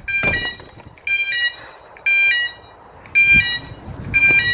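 Fire alarm sounder giving the pulsed alert signal, which marks the end of a test: a high multi-tone beep about a third of a second long, repeating about once a second. A couple of knocks fall between the beeps.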